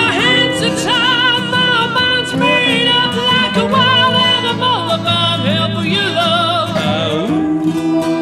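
Male lead vocal singing with long sliding, wavering notes over a strummed acoustic guitar and a resonator guitar.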